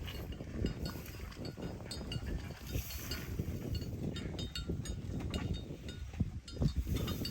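Irregular light metallic clinks and taps, like hand tools knocking against metal machine parts, over a low rumble.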